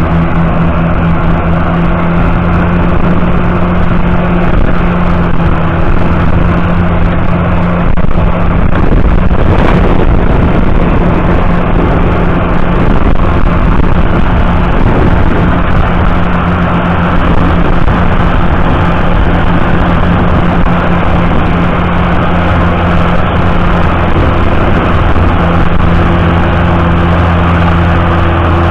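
John Deere 7710's 8.1-litre six-cylinder diesel engine running steadily and loudly under heavy load, pulling a deep single-furrow plough through the soil.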